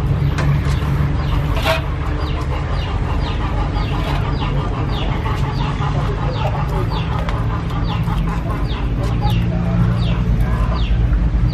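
A small bird chirping over and over, short falling chirps about two a second, over a steady low rumble, with one sharp click early on.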